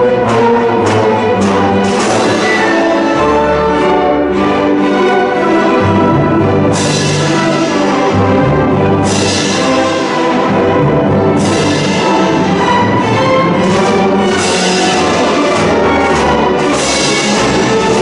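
University symphony orchestra playing a loud, full passage of classical music, with strings and brass together.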